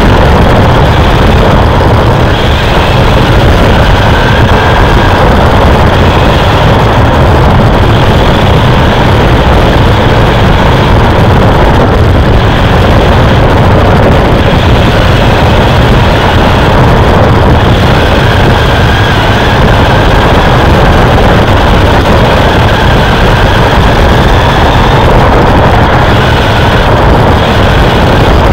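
Race truck's engine at speed, heard from on board, very loud and rough with the microphone close to overload. Its pitch rises and falls a little as the throttle is worked through the corners.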